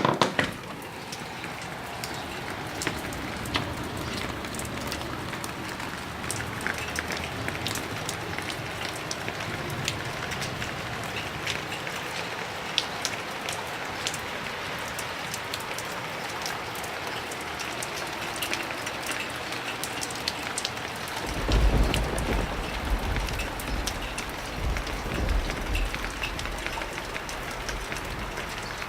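Heavy rain falling steadily, with many sharp drops pattering on hard surfaces. About three-quarters of the way through, a deep rumble of thunder rolls in for several seconds and is the loudest part.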